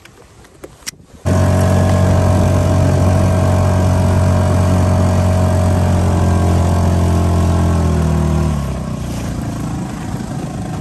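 Small outboard motor of a 2-horsepower boat running at a steady speed, loud. It starts suddenly about a second in. Near the end the low drone drops away, leaving a fainter hiss.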